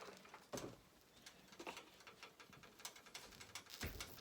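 Near silence: faint scattered ticks, with a soft low thump near the end.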